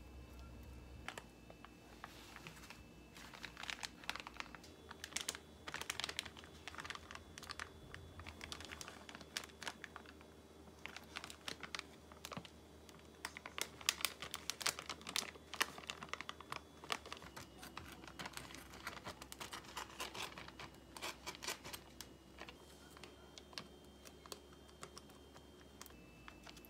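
Dry gim (laver seaweed) sheets and clear plastic wrap crackling and crinkling as they are handled, in irregular runs of quick, sharp clicks.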